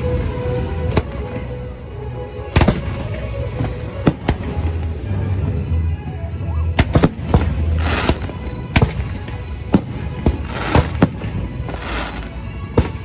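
Aerial fireworks shells bursting: a run of sharp bangs, a few at first, then coming thick and fast through the second half. Show music plays steadily underneath.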